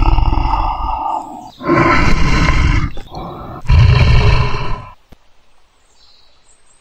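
Tiger roaring loudly, three rough roars in a row, each about a second long, the last dying away about five seconds in.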